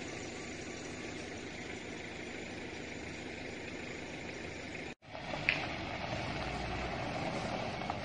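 Steady outdoor engine-like rumble and hiss; after a sudden cut about five seconds in, a pickup truck's engine idling with a deeper low rumble, and one brief high squeak just after the cut.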